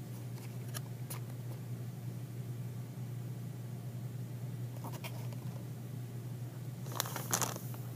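Plastic blind-bag packaging being handled, with a few faint clicks and a louder crinkling rustle about seven seconds in, over a steady low electrical hum.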